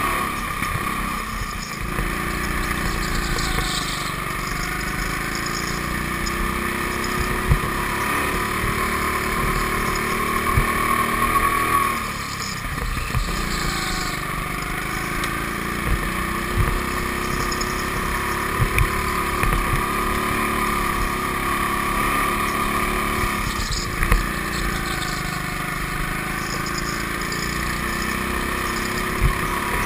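Go-kart motor running steadily as the kart laps an indoor track, its pitch rising and falling with speed. The sound dips briefly about every eleven seconds, and a few sharp knocks are heard.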